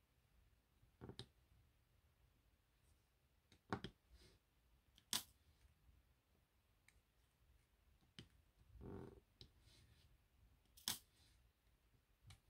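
Faint, scattered clicks and taps of a diamond-painting drill pen setting small acrylic drills onto the adhesive canvas, about half a dozen at uneven intervals, with a brief soft rustle about three-quarters of the way through.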